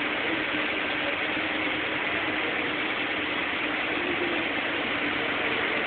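FS E656 electric locomotive moving slowly along the station track: a steady hum with a faint low tone under an even hiss.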